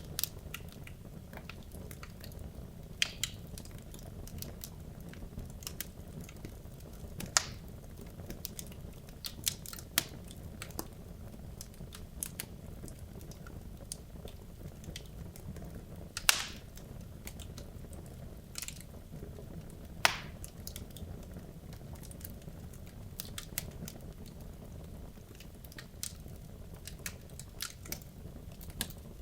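Wood logs burning in a fireplace: a steady low rumble of flames with irregular crackles and sharp pops, the loudest snaps about 7, 16 and 20 seconds in.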